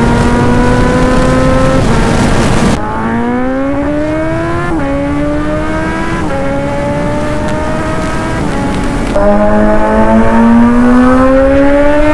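Kawasaki Z900's inline-four engine through an SC-Project aftermarket exhaust, pulling hard under acceleration. The engine note climbs and then drops sharply as it upshifts with the quickshifter, about three times, and is louder again in the last few seconds.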